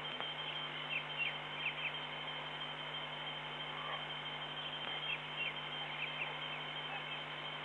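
Night-time bush ambience over a steady electrical hum: a continuous high whine, with groups of three or four short falling chirps about a second in and again from about five to six seconds in.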